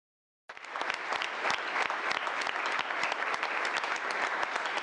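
A group of people applauding with dense, irregular clapping that starts abruptly about half a second in.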